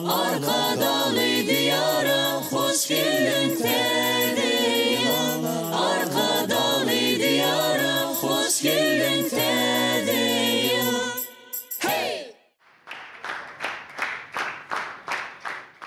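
Mixed a cappella choir singing a New Year song in close harmony over sustained low bass notes, the song ending about twelve seconds in. Then the audience claps, about three claps a second.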